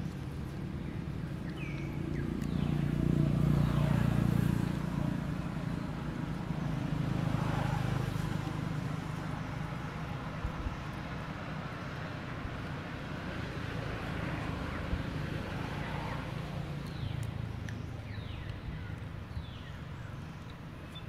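Low rumble of passing motor traffic, swelling loudest about three seconds in and again near eight seconds. A few faint, short, high chirps come near the start and near the end.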